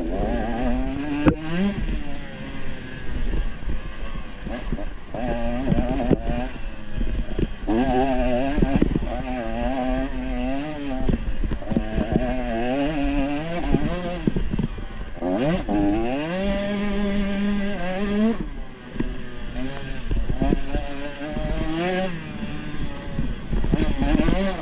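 Dirt bike engine being ridden hard off-road, its pitch rising and falling over and over with throttle and gear changes, including one long climb about two-thirds of the way in, with scattered knocks over the top.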